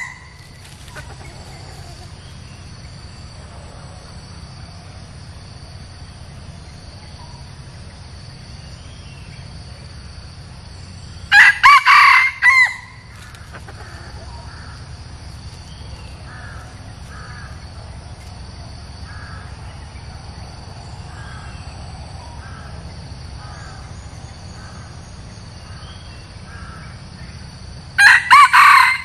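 Red junglefowl decoy rooster crowing: one short, broken crow about eleven seconds in and another starting near the end.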